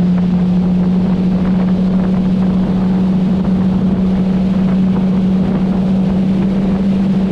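Yamaha outboard motor running steadily with a boat at speed: one steady engine drone over rushing water and wind buffeting the microphone.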